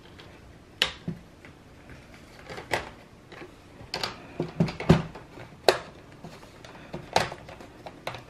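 Plastic snap clips of a laptop's front screen bezel clicking loose as the bezel is pried off the display lid by hand: about eight sharp plastic clicks at irregular intervals.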